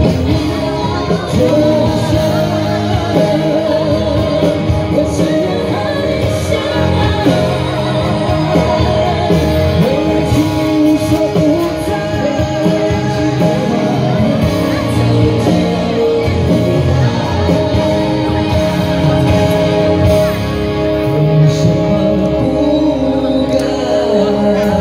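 Live amplified duet: a male and a female singer singing a pop ballad into handheld microphones over loud instrumental backing.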